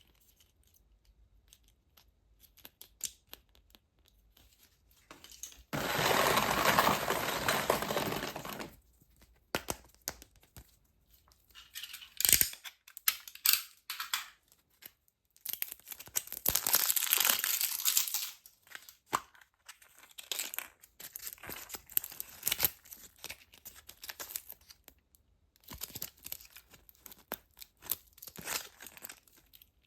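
Candy and surprise-toy packaging being handled: two long tearing rips, about six seconds in and again around sixteen seconds, with quieter crinkling and small clicks between them.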